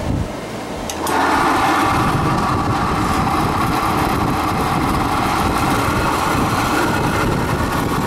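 Heavy-duty metal-cutting bandsaw switched on about a second in, its motor and blade then running with a steady hum.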